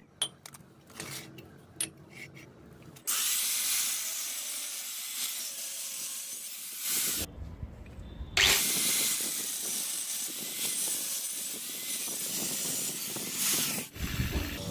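A power tool runs in two long steady bursts of about four and five seconds, with a thud between them, after a few seconds of handling clicks and knocks.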